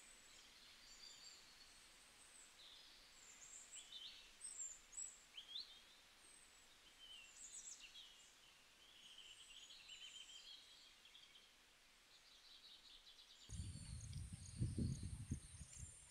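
Faint birdsong: scattered short chirps and twittering calls over a quiet rural background. Near the end a low rumble comes in.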